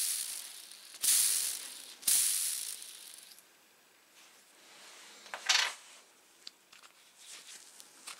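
Small ball bearing from a Bosch GWS 7-115 angle grinder spun by hand with a flick of the fingers, whirring and dying away over about a second each time, checking how freely it runs. Three spins about a second apart, then a shorter one about five seconds in, followed by faint light clicks of small metal parts.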